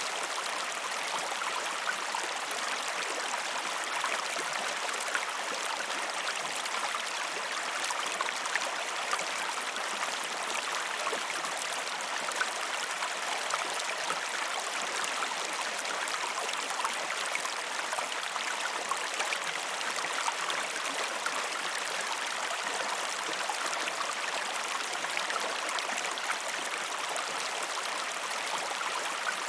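River water flowing in a steady, even rush, with many small splashes and gurgles running through it.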